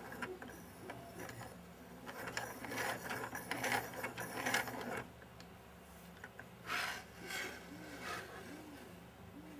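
Plastic parts of a 3D-printed eccentric-wheel Scotch yoke model clattering and scraping as the wheel is turned by hand, busiest about halfway through, then two short scuffs as the model is handled.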